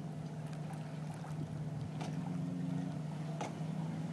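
An engine idling with a steady low hum. A second, higher note joins it for about a second, around two seconds in.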